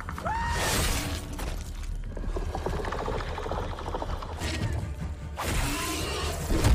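Film soundtrack: a low droning score under sound effects, with a short pitched cry about half a second in and rushing noises. Near the end comes a loud whooshing burst of fire.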